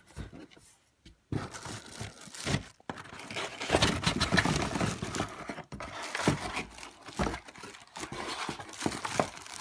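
Packaging rustling and crinkling, with small clicks and knocks, as vacuum parts are handled and pulled out of the box; it starts a little over a second in.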